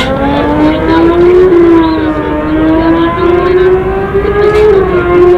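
Homemade 5-litre V12 land speed car at full throttle on a record run, its engine note climbing steadily in pitch, with a couple of brief dips along the way.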